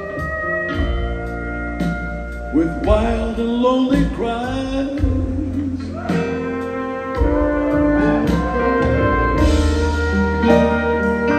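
Live rock band playing a slow passage with guitars, keys, bass and drums, and a lead line that slides and bends in pitch.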